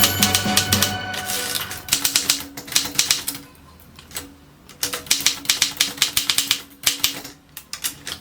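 Keys of a Consul 224 portable typewriter typing in quick runs of sharp clacks with short pauses between them, over background music that fades about a second in.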